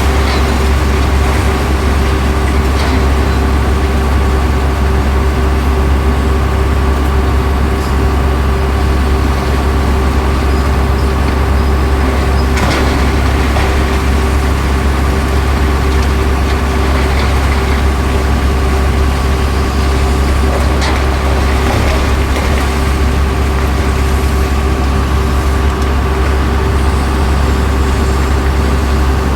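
Excavator's diesel engine running steadily, a heavy low drone with a constant hum above it. A couple of brief knocks cut through, about halfway through and again about two-thirds of the way in.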